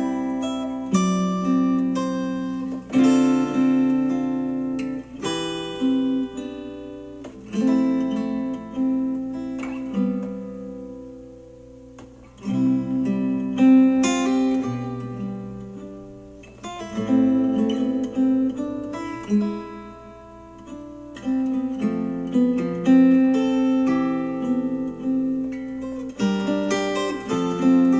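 Acoustic guitar music, plucked and strummed notes ringing out and fading, with no vocals, played back through a JBL Xtreme 3 Bluetooth speaker.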